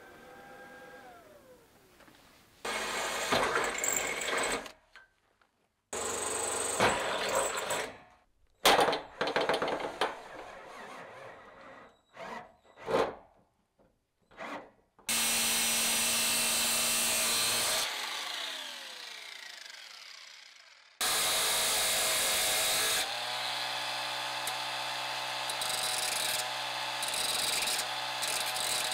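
Power tools running in a string of short bursts, broken by sudden cuts. About fifteen seconds in, a motor runs steadily and then spins down with a falling whine. Near the end a steady motor hum holds.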